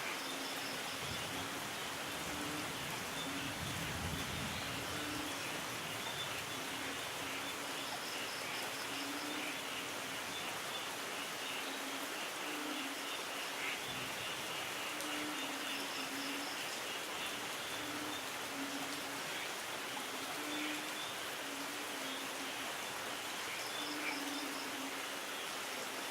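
Steady rain falling, an even hiss, with faint chirping trills recurring every several seconds over it.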